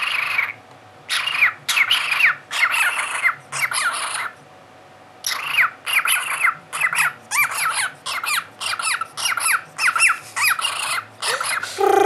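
Cockatiel giving a rapid series of short chattering squawks, about two a second, with a pause of about a second partway through.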